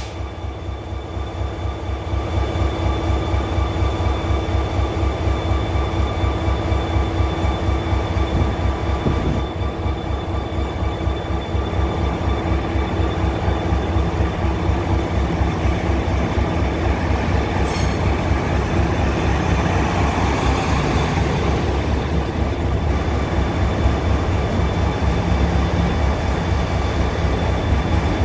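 Korail RDC Mugunghwa diesel railcar pulling in alongside the platform: its diesel engines run with a low, steady throb under the rumble of wheels on rail, which grows louder as the cars come alongside.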